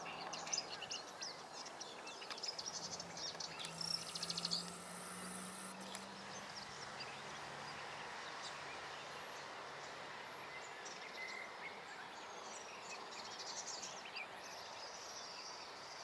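Eurasian skylark singing at a distance: quick high twittering that comes and goes, busiest a few seconds in and again near the end, over a steady background hiss. A faint low hum lies under the first half.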